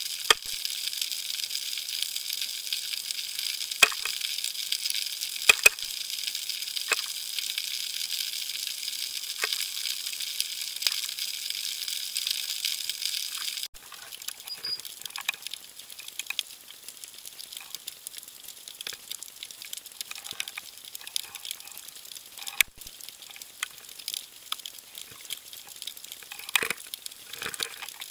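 Underwater ambience heard through a submerged camera: a steady crackling hiss with scattered sharp clicks. It drops abruptly to a quieter crackle about halfway through, with a brief break later on.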